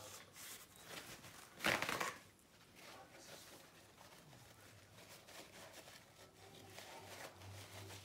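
Rustling, scraping handling sounds of a painted canvas being turned on a cake spinner, with scattered small clicks and one louder scrape about two seconds in. A faint low hum comes in during the second half.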